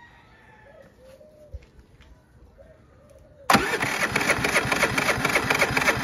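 Predator 3500 inverter generator's single-cylinder engine turned over by its electric starter, starting suddenly about three and a half seconds in and cranking steadily without catching. The engine is getting no spark at the plug.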